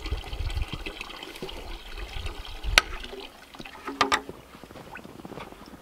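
Water trickling steadily. A sharp knock comes a little under three seconds in, then a short clatter about four seconds in as a plastic bucket and its handle are lifted off a fence post.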